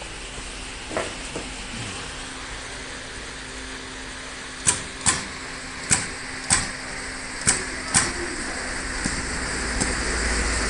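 Pneumatic wire terminal crimping machine running with a steady hum, then six sharp clacks in three close pairs from about halfway in as the crimping press cycles.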